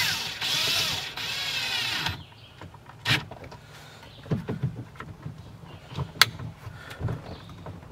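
Cordless drill whirring in several short trigger-pulls over the first two seconds, its pitch rising and falling with each pull, followed by a few light clicks and knocks.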